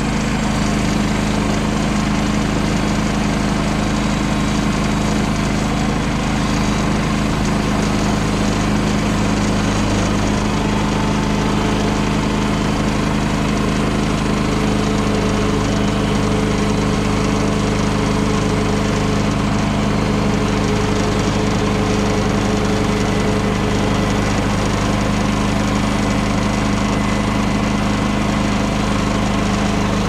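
Small gasoline engine of a Woodland Mills HM130 portable bandsaw mill running steadily at an even speed.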